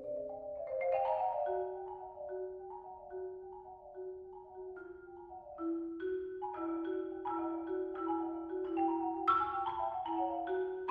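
Two marimbas played together with soft mallets: a repeating groove of struck, ringing notes that interlock, sparser at first and filling out with denser notes about halfway through.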